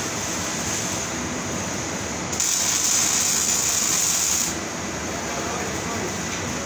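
Arc welding on a steel tube frame, likely MIG: about two seconds in the arc strikes and gives a steady high hiss for about two seconds, then stops. Steady workshop machinery noise runs underneath.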